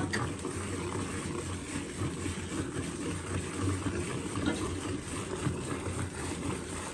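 Hand milking into a steel bucket: jets of milk squirted from a cow's teats hiss and froth into the foamy milk already in the pail, over a steady low hum.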